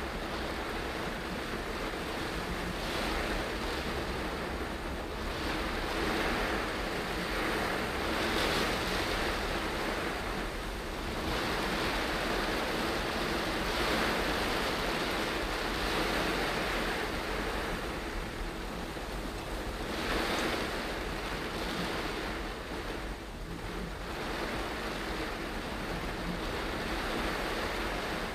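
Steady hiss of rain and car tyres on a wet road heard from inside the car, swelling and easing every few seconds.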